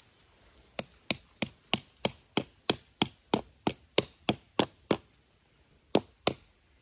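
Rapid chopping or whacking strikes on wood: about fourteen sharp knocks evenly spaced at roughly three a second, a pause, then two more near the end.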